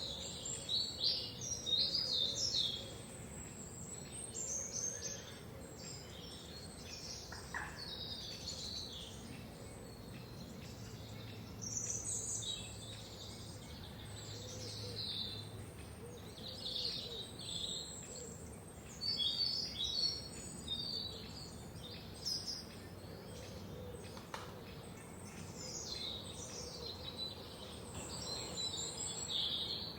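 Several songbirds singing and chirping in a forest, short fluttering high phrases coming one after another, over a steady low background hum.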